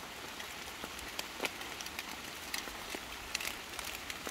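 Light rain falling: a steady soft hiss with scattered drops ticking irregularly.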